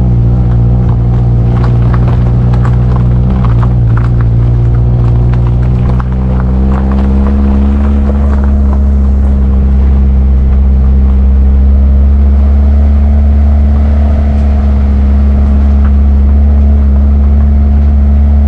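A motor vehicle's engine running steadily as a low drone, with scattered knocks and rattles over the first six seconds. About six and a half seconds in, the engine note steps up in pitch and then holds steady.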